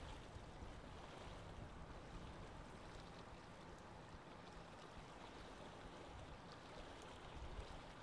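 Near silence: a faint, steady hiss of noise.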